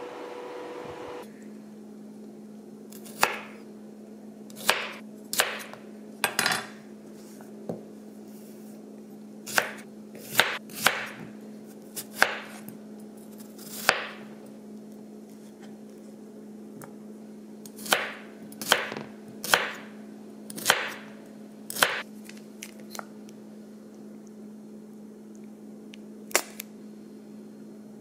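A long, irregular series of sharp knocks and clacks, about twenty in all, some in quick pairs, with a short ringing after each. Under them a steady hum sets in about a second in.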